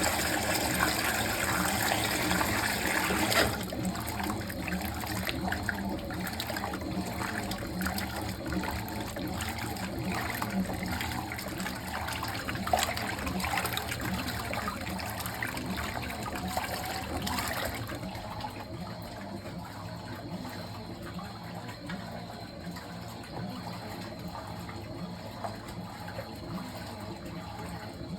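Fisher & Paykel MW059NZ washing machine filling, water gushing steadily into the tub. The flow drops noticeably about three seconds in and again about two-thirds of the way through.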